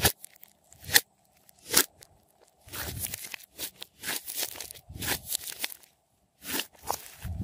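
Glossy slime with clay mixed in, squeezed and stretched by hand: a run of sharp, sticky pops and crackles as trapped air bursts, in single snaps early on and then in short crackling bunches.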